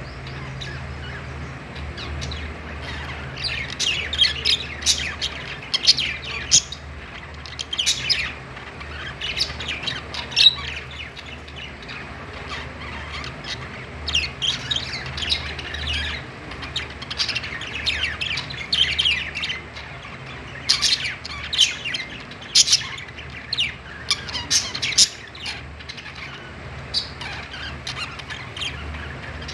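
Budgerigars chirping and chattering in clusters of short, high calls, with brief lulls, over a steady low hum.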